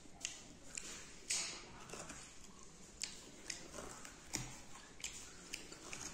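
A person eating beef close to the microphone: wet chewing with irregular sharp mouth clicks and smacks, about ten of them, and a louder, longer noisy smack about a second in.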